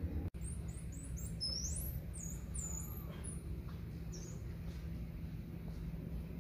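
Common squirrel monkeys giving a quick run of very high-pitched chirps and peeps, some sliding upward, over a steady low background rumble; one more chirp follows a moment later.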